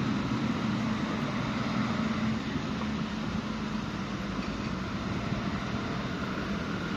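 Steady city-street hum: a low engine drone and traffic noise with no distinct events.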